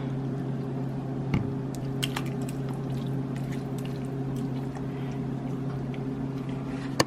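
Forks pulling apart tender stewed beef in its broth: soft wet squishing with light clicks of metal on the pot, over a steady low hum. A sharper clack at the very end.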